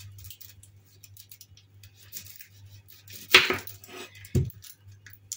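Kitchen handling noises at a counter: light clicks and small rustles, a louder clatter about three seconds in, then a dull knock about a second later, over a steady low hum.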